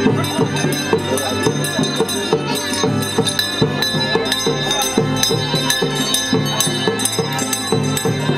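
Music with a steady beat of about three strokes a second under ringing bell-like tones.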